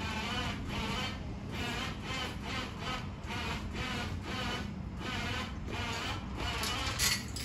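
Electric winch slowly dragging a truck chassis across the floor, with a rhythmic squeaking whine that pulses about every three-quarters of a second.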